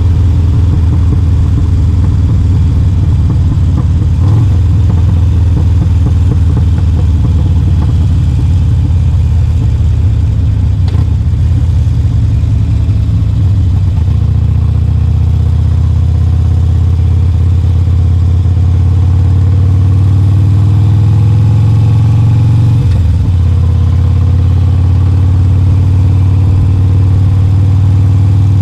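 Harley-Davidson Sportster Forty-Eight's air-cooled 1200 cc V-twin running through a Two Brothers Racing 2-into-1 exhaust while riding. It fires choppy and uneven at low revs for the first half, then runs smoother with the pitch climbing, breaks off briefly about two-thirds through, and climbs again.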